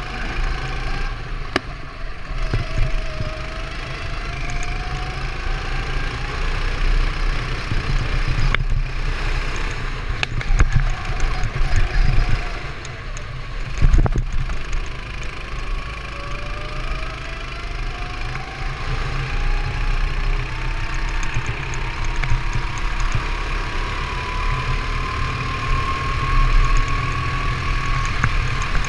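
Go-kart engine running at racing speed, its pitch rising again and again as it accelerates and dropping back between, with the longest climb near the end. A heavy low rumble runs underneath, and there are a couple of sharp knocks in the middle.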